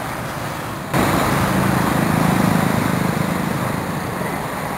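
Road traffic with motorcycles and cars passing close, a steady mix of engine and tyre noise. It jumps suddenly louder about a second in, and the motorcycle engines are strongest near the middle before easing off.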